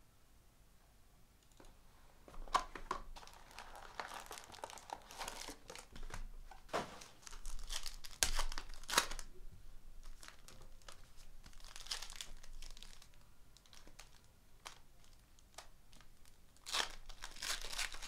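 Trading card pack wrappers being torn open and crinkled by hand: after a quiet first couple of seconds, repeated bursts of crackling and tearing.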